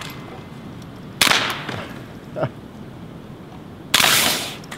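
Two shots from a Ruger Charger .22 LR semi-automatic pistol loaded with subsonic ammunition: one about a second in and one near the end, each a sharp, fairly quiet crack.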